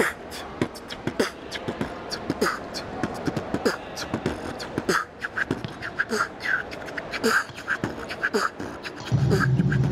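A person beatboxing: quick mouth clicks and hi-hat-like hisses over short kick-drum thumps in an uneven beat. About nine seconds in, a loud low steady rumble starts.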